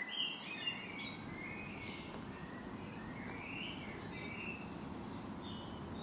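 Small birds chirping in short calls over steady outdoor background noise.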